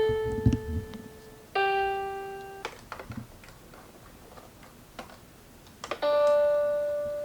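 Electronic toy tones from a VTech Touch and Learn Activity Desk: three held notes, each sounding for a second or two and fading, at the start, about one and a half seconds in, and about six seconds in, with small clicks in between.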